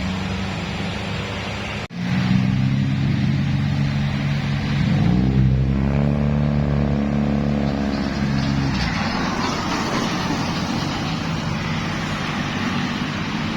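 Large diesel tour-bus engines running through a bend. One engine grows louder as it passes close, between about five and nine seconds in, and its pitch rises slightly and then falls away. The sound cuts out for an instant about two seconds in.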